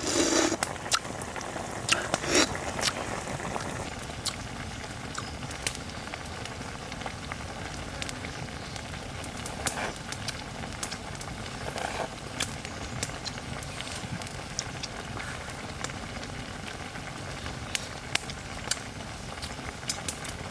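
A steady hiss with scattered sharp crackles and clicks, with a few louder knocks near the start and a faint steady high tone joining about four seconds in.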